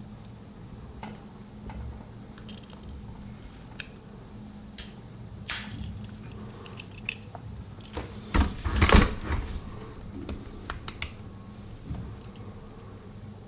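Scattered metallic clicks and clinks of an aluminium-scaled Swiss Army knife being handled, its tools opened and snapped shut, with a louder cluster of knocks and rustling about eight to nine seconds in. A steady low hum runs underneath.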